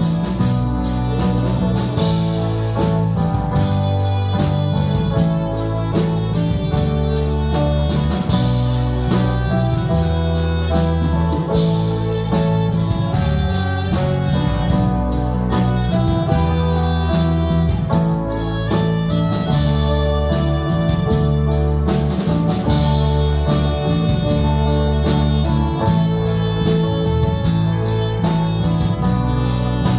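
Live worship band playing an instrumental passage: guitar and bass chords over a steady drum beat.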